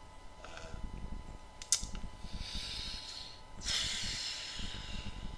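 Heavy breathing from a man with asthma: a short breath, a single sharp click about a second and a half in, then two long hissing breaths, the second louder.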